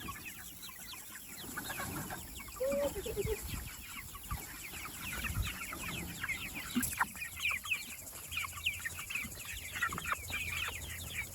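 A flock of chickens calling, many short high peeps and clucks overlapping continuously.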